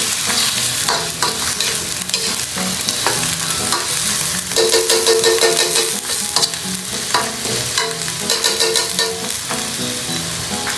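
Pork intestine stir-frying in a hot pan: a steady sizzle throughout, with a utensil scraping and knocking against the pan as the meat is stirred.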